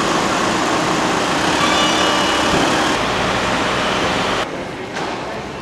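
Steady road traffic and vehicle engines along an airport terminal's drop-off road, a loud even rush. About four and a half seconds in, it falls away to a quieter, even background hum.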